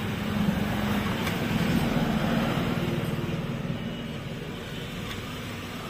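A motor vehicle engine running, growing louder about half a second in and easing off over the last couple of seconds.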